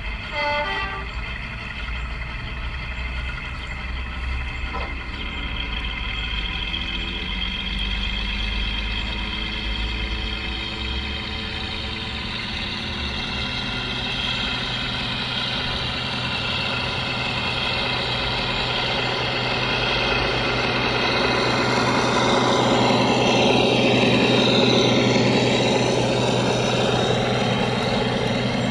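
Diesel engine sound of a Warship-class (Class 42) diesel-hydraulic 7mm scale model locomotive running steadily as it hauls its train, getting louder as it draws near, with wheel noise on the rails.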